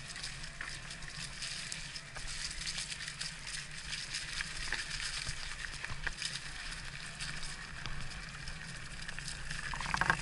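Electric mountain bike riding over a loose dirt trail: a steady rolling hiss with many small crackles and clicks from the tyres on the ground.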